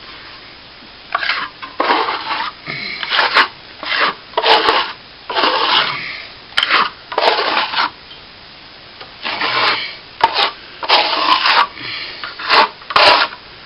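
Coarse sandpaper (about 40 grit) being rubbed by hand over set cornice cement, in about a dozen short, uneven rasping strokes, with a brief pause past the middle.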